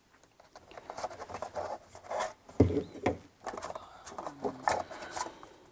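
Rustling, scraping and clicking of a doorbell's parts and packaging being handled out of the box, with a sharper knock about two and a half seconds in.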